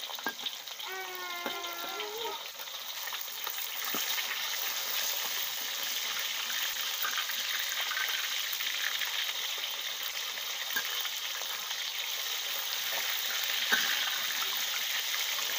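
Whole fish frying in hot oil in a steel wok, sizzling steadily and growing a little louder, with a metal spatula scraping and a sharp knock near the end as the fish are turned.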